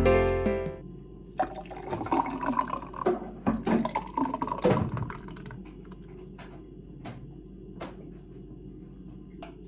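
Background music fades out, then liquid runs or splashes for about four seconds, followed by a few sharp clicks.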